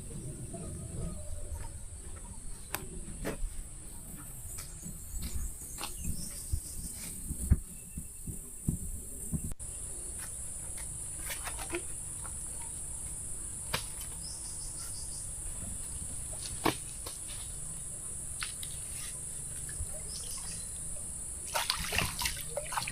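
Steady high-pitched drone of forest insects, with scattered light clicks and knocks over it and a few more near the end.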